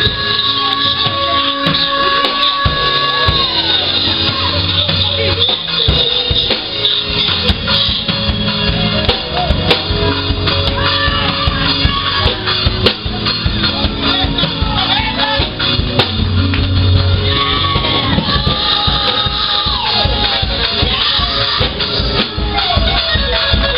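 Live church praise music: a band with drum kit playing under held chords, with voices singing and shouting over it.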